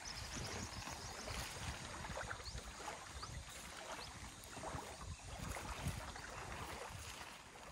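Wind gusting unevenly across the microphone and stirring a loose canvas tarp, with scattered light rustles and clicks as the cord is tied to a wooden pole.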